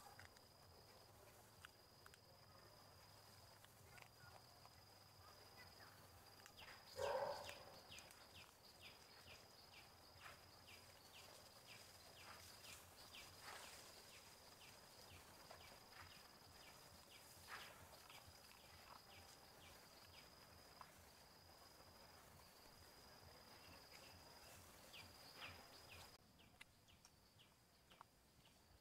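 Quiet forest ambience: a faint, steady, high-pitched insect trill broken into pulses about a second long, with scattered soft ticks. There is one brief louder sound about seven seconds in, and the trill stops near the end.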